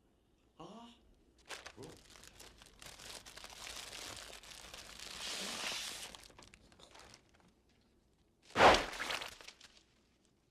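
Paper air-sickness bag being crinkled and rustled for several seconds, then one loud sudden burst about eight and a half seconds in.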